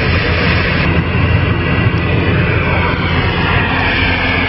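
Steady engine drone with a low hum and an even hiss, the running noise of a truck cab.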